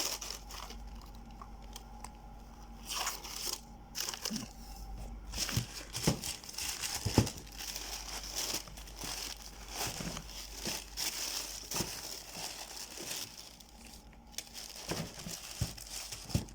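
Shoe-box packaging, wrapping and stuffing paper, crinkling and rustling in irregular bursts with sharp crackles as new running shoes are unwrapped and handled.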